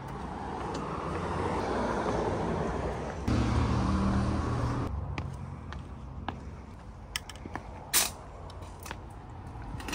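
A car passing on the road: tyre noise swells over the first few seconds, and a steady engine hum is loudest about three to five seconds in before it fades. Then it is quieter, with a few sharp clicks and a knock near the end.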